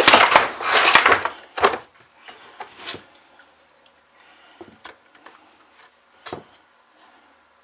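Hands taking apart a Stihl chainsaw on a workbench: a loud scraping rustle for about a second and a half, then a sharp click and a few lighter taps and ticks of plastic and metal parts being handled.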